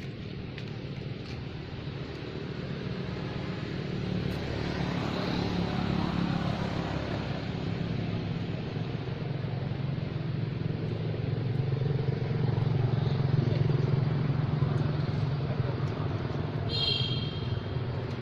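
Steady low rumble of a motor vehicle engine, swelling through the middle and easing off near the end. A brief high-pitched call sounds near the end.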